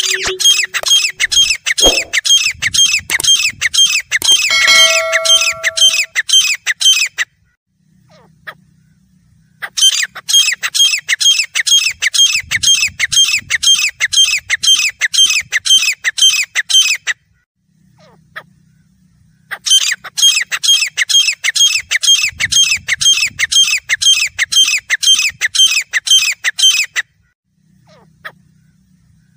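Grey francolin calling: rapid, repeated, harsh notes in three bouts of about seven seconds each, with pauses of about two seconds between them. Two brief steady tones sound during the first bout, one just after the start and one about five seconds in.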